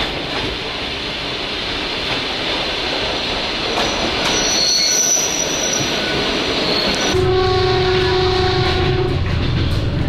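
Train running and growing steadily louder, with a high wheel or brake squeal about halfway through. A little after seven seconds in its horn sounds for about two seconds.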